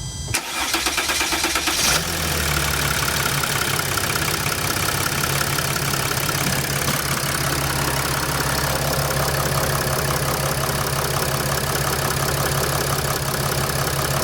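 Mercedes Sprinter NCV3's 3.0 V6 diesel cranked over by the starter for a couple of seconds, then catching and idling steadily. This is the first start after a fuel filter change, with the fuel system just primed.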